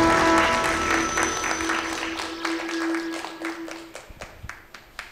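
Closing music with a held note fading out, under audience applause that thins to a few scattered claps near the end.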